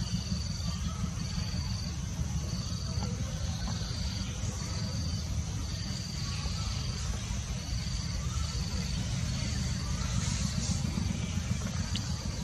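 An insect calls outdoors in short high-pitched pulses, about one a second, over a steady high drone and a steady low rumble.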